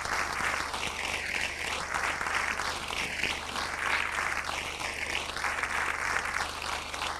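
Audience applauding steadily in a theatre hall, with a steady low electrical hum underneath.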